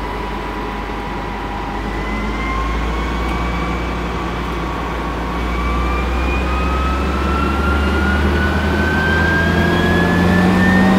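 Case IH 7120 combine running on a test after a repair to its rotor drive, with a steady low engine hum and a whine that climbs slowly in pitch and grows louder as the machine speeds up.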